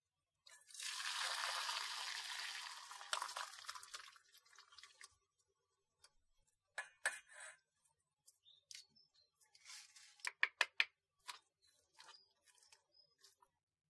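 Cooking water poured off boiled squash and sweet potato through a metal mesh strainer, a steady splashing rush lasting about four seconds. It is followed by scattered knocks and then a quick run of sharp clinks and soft squishes as the cooked vegetables are mashed in a stainless steel bowl.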